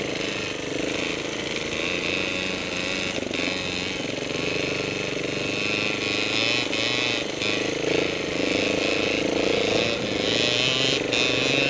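Trial motorcycle engine running on a trail ride, its revs rising and falling with the throttle, with a few short knocks.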